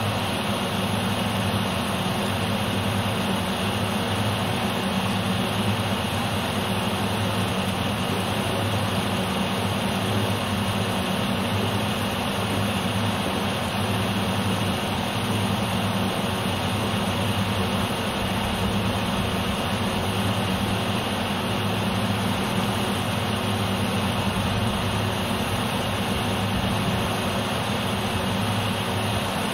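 A steady, unchanging low mechanical hum at one constant pitch, with no starts, stops or changes.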